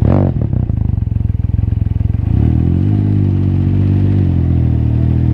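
Can-Am Ryker Rally's Rotax 900 three-cylinder engine through an aftermarket Treal Performance exhaust: a low, pulsing rumble that revs up about two seconds in and holds at high revs, easing off slightly near the end.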